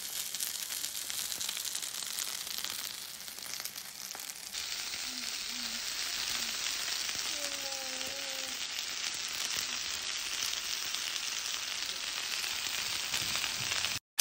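Gyoza sizzling steadily as they pan-fry on an electric hot plate, their bottoms browning crisp.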